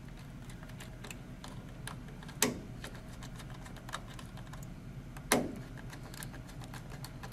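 Small scattered clicks and taps of wire ends and a small screwdriver working a boiler control's terminal block, with two sharper clicks about two and a half and five seconds in, over a faint low hum.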